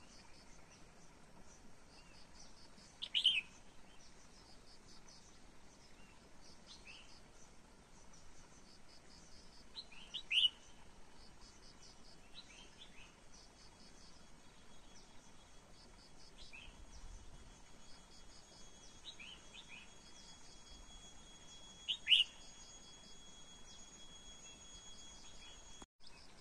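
Short, bright bird calls: three louder ones several seconds apart and a few softer ones between. Behind them is a faint, steady insect chirring that repeats evenly.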